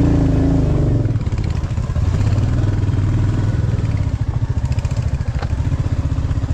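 Motorcycle engine running at low speed under the rider, a steady rapid beat of firing pulses as the bike is ridden slowly along a muddy, rutted dirt track.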